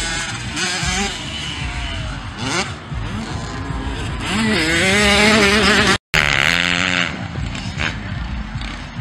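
Motocross dirt bike engines revving up and down along the track, their pitch rising and falling, loudest about five seconds in. The sound drops out for a moment just after six seconds.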